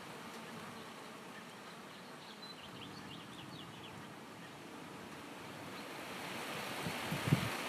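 Honeybees buzzing faintly at a hive entrance over a steady outdoor hiss. Near the end the wind picks up and a few gusts thump on the microphone.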